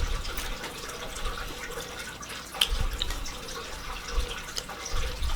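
Someone eating close to the microphone: chewing with small wet mouth clicks scattered throughout and a few soft thumps.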